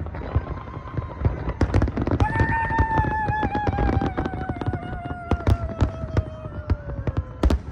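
Fireworks display: a dense run of bangs, pops and crackles from bursting shells. From about two seconds in, a long wavering whistle-like tone slides slowly down in pitch for about five seconds.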